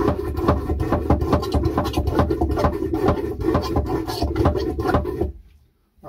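Manual marine toilet's hand pump worked in rapid, repeated strokes with the valve set to tank, pumping the bowl's water through to the holding tank. The pumping stops about five seconds in.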